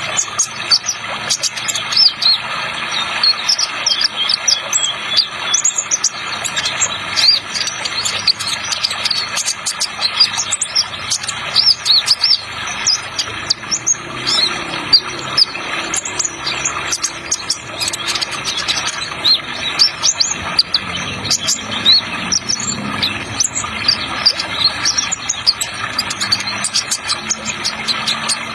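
Sunbird (kolibri ninja trotol) singing a fast, continuous run of high chirps and trills, over a steady hiss of running water added as a sound effect.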